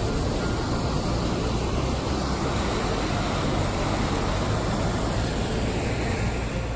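Fast-flowing mountain creek rushing over rocks: a steady, even wash of water noise.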